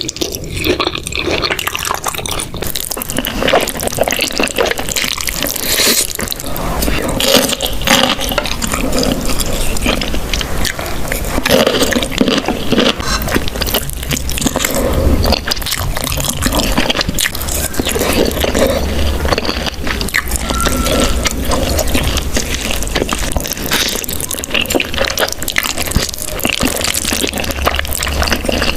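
Close-miked wet eating sounds: Buldak spicy noodles slurped and chewed in quick succession, with many small sticky clicks and squelches.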